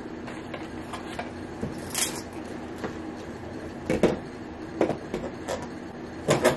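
Q-Redew handheld hair steamer running, a steady low hum with a few short crackles and pops now and then.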